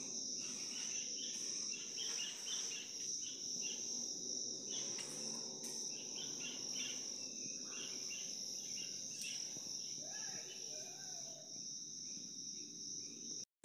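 Insects trilling in a steady, unbroken high-pitched tone over faint background noise, cutting off abruptly just before the end.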